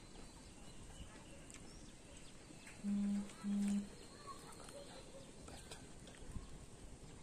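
Two short, steady low hums, each about half a second long, close together a little under three seconds in. Faint scattered bird chirps sound over a low outdoor background.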